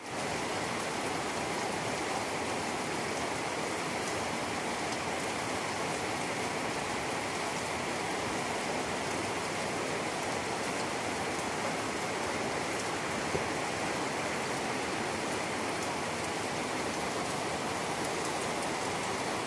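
Steady heavy rain falling on trees and grass, an even hiss with no let-up.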